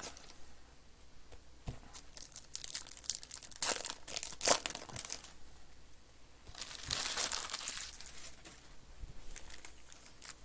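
Foil wrappers of trading-card packs crinkling and tearing as packs are opened and cards handled, in irregular bursts of crackle, busiest in two spells around the middle.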